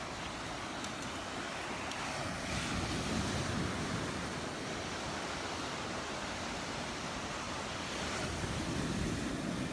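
Gulf surf washing onto the beach: a steady rush that swells twice, about three seconds in and again near the end.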